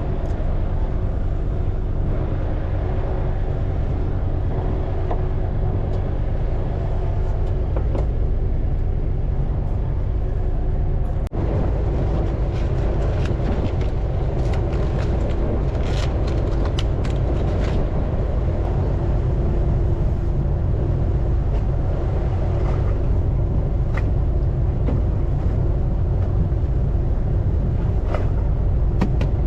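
Fishing boat's engine running with a steady low rumble, with scattered light clicks about halfway through.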